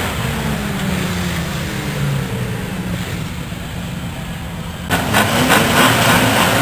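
Speedway race car engines on a dirt oval. The engine notes fall in pitch and fade over the first few seconds, then about five seconds in louder engines rev up with a rising note.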